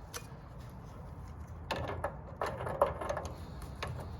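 Metal parts of a water heater's burner assembly and gas line being handled: a run of clinks, knocks and scraping in the middle, with one sharp click.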